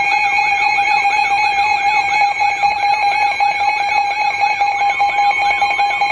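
Emergency alert attention tone broadcast ahead of a National Weather Service severe thunderstorm warning: a loud, steady electronic alarm tone with a warble repeating about three times a second. A second, slightly higher tone joins in near the end.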